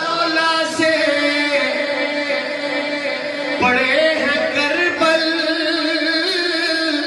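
A man singing a naat, an Urdu devotional song in praise of the Prophet, unaccompanied. He holds long, wavering notes and starts a new phrase twice.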